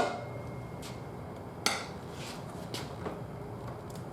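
Metal tyre tools clinking against a steel spoked motorcycle wheel as the tyre bead is levered off the rim: a few light clinks and one sharper clank about a second and a half in.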